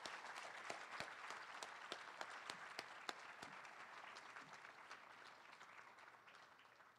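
Applause from a seated group clapping, with single claps standing out, tapering off toward the end.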